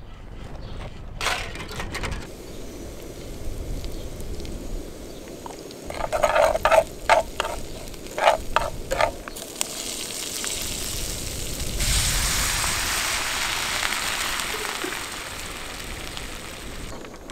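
Chopped garlic, ginger and green onions sizzling as they sauté in a frying pan over a camp stove, with a run of short scrapes from the spatula stirring the pan about six to nine seconds in. The sizzle grows louder and hissier about twelve seconds in.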